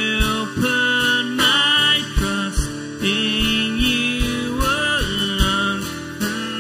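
Live worship song: a man singing over a strummed acoustic guitar, with a drum kit keeping a steady beat.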